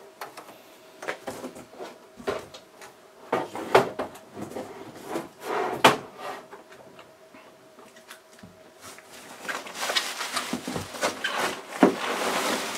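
Steel case of a Cisco 2811 router handled and set down, with scattered knocks and clunks. From about nine seconds in, a dense crackling of bubble wrap and cardboard as packing is pulled from a box.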